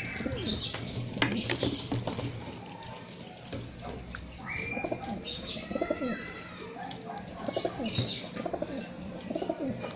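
Racing pigeon cocks cooing in a loft cage: repeated short, low, falling coos with occasional wing flutters. A brief high chirp sounds about halfway through.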